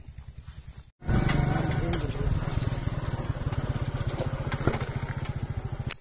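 Small engine, most likely a motorcycle, running steadily and close by, with a fast even pulse and a strong low hum. It comes in abruptly about a second in.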